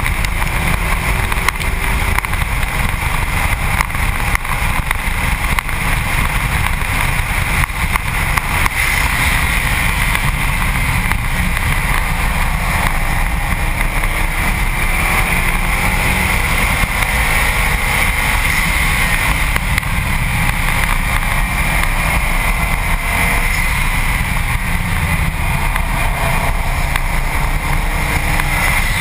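Steady wind rush and road roar on a camera mounted low on the front bumper of a Subaru WRX STi at track speed. Under it the car's turbocharged flat-four engine is faint, its pitch rising and falling now and then.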